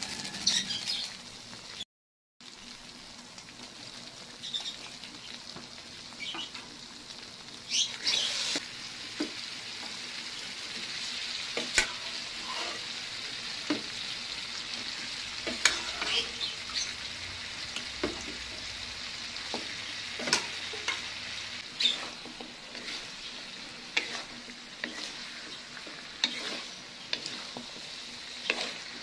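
Stew simmering and sizzling in a pan, with sharp clicks and knocks of ingredients and a utensil against the pan as the pot is stirred. The sizzle grows louder about eight seconds in.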